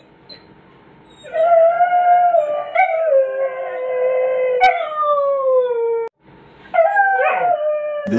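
A beagle howling: one long howl sliding slowly down in pitch from about a second in, a short break, then another howl starting near the end.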